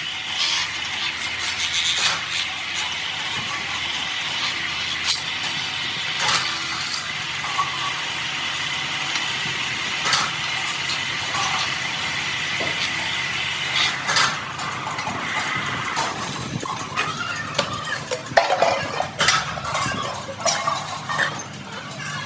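Workshop machinery running steadily while metal vessels are worked, with scattered metallic clinks and knocks that become more frequent near the end.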